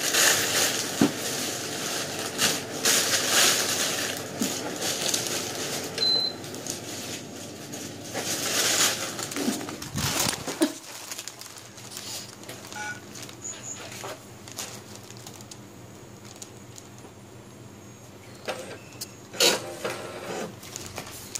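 Plastic carrier bag rustling and crinkling with small clicks and knocks as things are handled and packed. After about ten seconds it goes quieter, leaving scattered light clicks and a couple of sharper clicks near the end.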